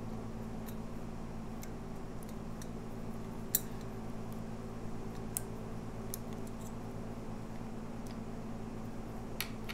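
Scattered light metal clicks and ticks as the throttle cable ends are worked off the Honda Shadow VT750 carburetor's throttle pulley, with one sharper click about three and a half seconds in. A steady low hum runs underneath.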